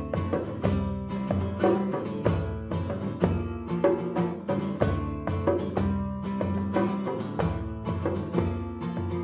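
A live band playing an instrumental passage of a song with no singing, led by guitar with regular strummed strokes over sustained low notes.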